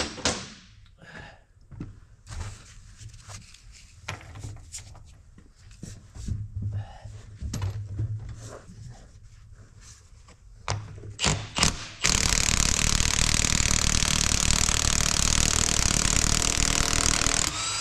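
Scattered clinks and knocks of sockets and tools being handled. Then, about twelve seconds in, a cordless impact wrench starts hammering abruptly and runs without a break for about five and a half seconds, working to break loose a bolt on an engine's cylinder head.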